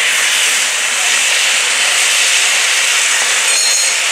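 Steam steadily hissing out of the Tkt48 steam tank locomotive's running gear, low around the cylinders and driving wheels.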